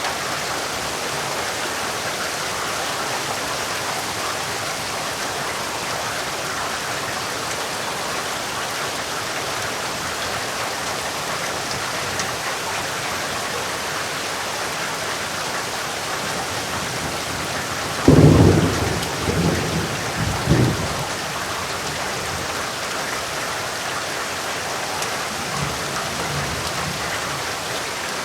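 Heavy rain falling steadily. About two-thirds of the way through, a sudden loud clap of thunder breaks in and rumbles in several surges for about three seconds, with fainter rumbles near the end.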